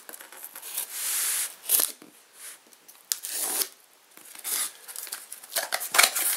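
Packing tape on a cardboard box being slit with a knife and torn open. It comes as a string of scraping, tearing strokes: the longest about a second in, then shorter ones roughly every second.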